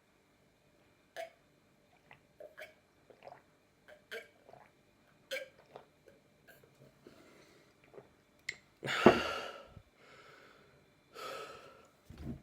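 A person gulping water in a quick, irregular run of swallows, then taking a loud gasping breath about nine seconds in, followed by two more heavy breaths.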